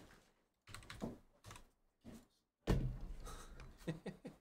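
Computer keyboard typing and clicking in short clusters, with a heavier thump about two and a half seconds in.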